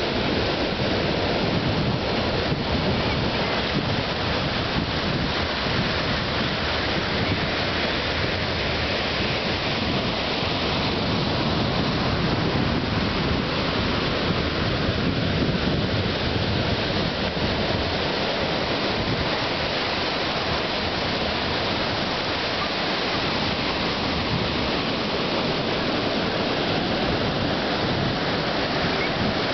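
Surf breaking and washing up a sandy beach in a steady rush, with wind rumbling on the microphone.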